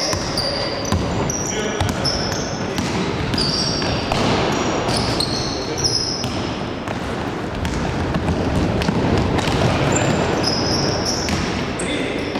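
Basketball being played on an indoor court: the ball bouncing on the floor, sneakers squeaking in short high chirps, and players calling out.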